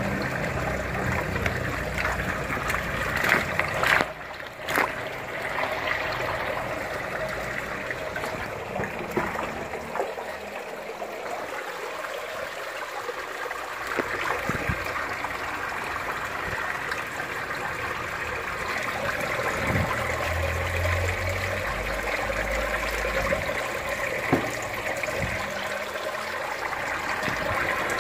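Water pouring and splashing steadily into an aquaponics fish tank, with a few sharp splashes about four seconds in.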